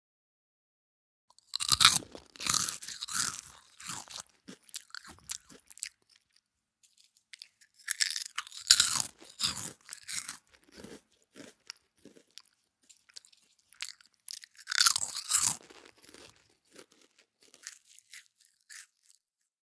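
Crunching and chewing sound effect, like crisp food being bitten and chewed, in three bouts of dense crackling with short pauses between them.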